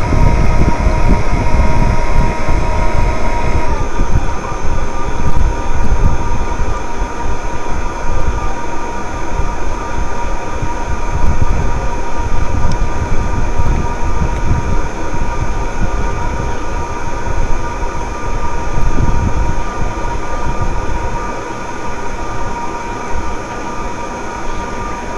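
Wind buffeting the microphone with a heavy, fluctuating rumble, over a steady whine from the RC model ship's drive motors that changes about four seconds in.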